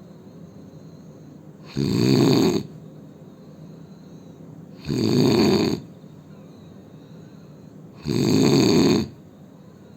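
A man snoring loudly: three snores about three seconds apart, each lasting a little under a second, much quieter between them.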